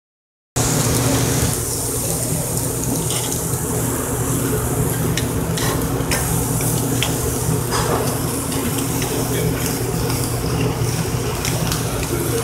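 Chicken wings sizzling on a gas charbroiler, with scattered pops of fat, over a steady low hum. The sound starts abruptly about half a second in.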